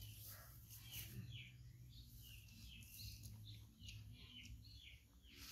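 Faint birds chirping: many short, high calls, a few each second, over a low steady hum.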